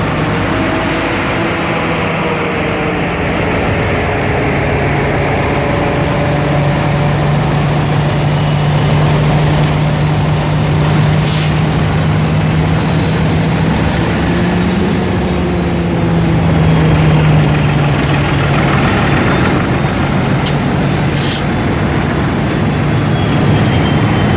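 Heavy freight train of about 7000 tons of sand under way behind Alco-design diesel locomotives: a steady low engine drone under load over the rumble of the rolling train, with brief high wheel squeals that come and go.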